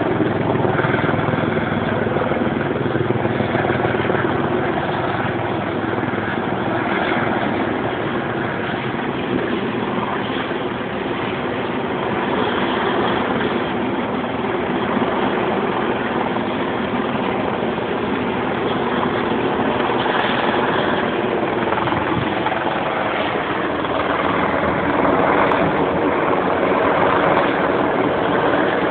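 Police helicopter flying overhead, its rotor and engine running steadily, growing a little louder near the end.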